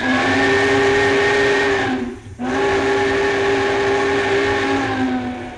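Union Pacific Big Boy steam locomotive's chime whistle blown twice: a blast of about two seconds, then a longer one of about three seconds whose chord sags slightly in pitch at the end. A hiss runs underneath, and the sound is played back from a vinyl record.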